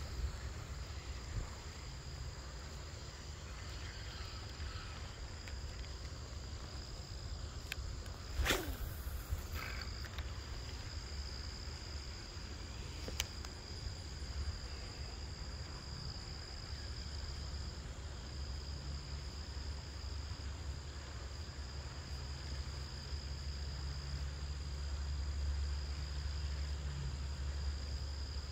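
Crickets and other insects chirring in a steady, even high trill over a low rumble. A single sharp swish falling in pitch comes about eight seconds in.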